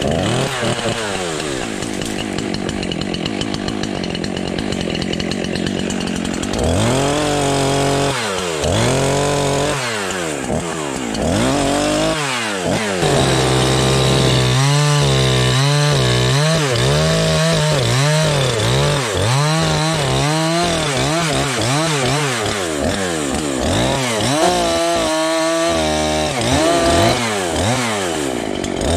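Chainsaw engine running, steady for the first few seconds, then revved up and down over and over, its pitch sagging and climbing as it cuts brush.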